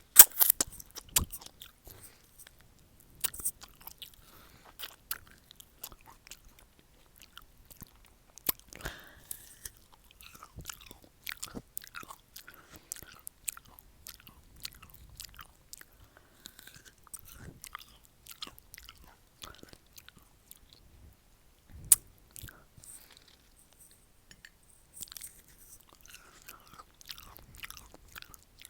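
Close-miked bites into a raw pear and wet, crunchy chewing of the crisp flesh, with sharp crunches at each bite, the loudest near the start and about 22 seconds in, and a run of smaller crackles in between.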